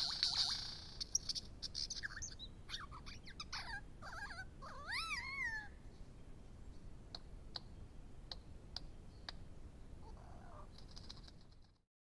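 Male superb lyrebird singing its courtship display song: a rapid run of whistled, sweeping and warbling notes, then a handful of sharp, evenly spaced clicks. The sound stops just before the end.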